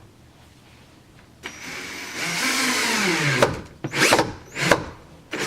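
Cordless power drill driving a hinge screw into a door. It runs steadily for about two seconds, grows louder partway through, then winds down with a falling pitch.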